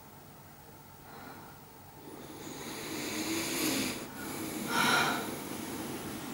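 A person breathing heavily: one long, noisy breath building over about two seconds, then a shorter, louder breath about five seconds in.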